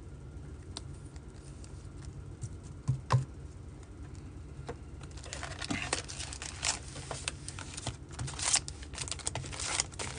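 Wrapped trading-card packs and their cardboard hobby box being handled and emptied: a few light taps at first, then dense crinkling and rustling of the pack wrappers from about halfway through. A steady low hum lies underneath.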